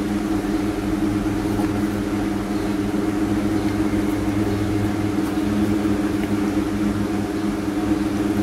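A steady low hum, unchanging throughout.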